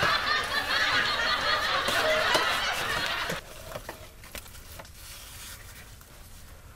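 Burst of laughter that cuts off suddenly about three and a half seconds in, leaving only faint scattered clicks.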